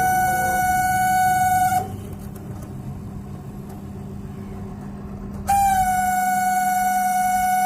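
The fan motor of an LG MS1911HE microwave oven makes a loud, steady horn-like drone over the oven's low running hum. The drone cuts out about two seconds in and comes back about three and a half seconds later. The noise comes from a dry fan motor, which the owner cures by greasing and oiling it.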